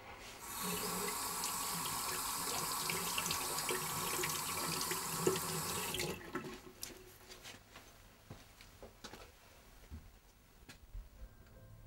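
A steady stream of liquid splashing for about five seconds, stopping suddenly, followed by a few soft knocks.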